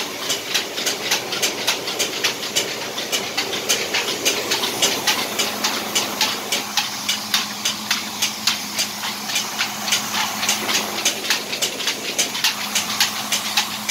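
Small belt-driven rice and grain mill running: a steady hum and grinding hiss with a rapid, even clacking of about four clicks a second.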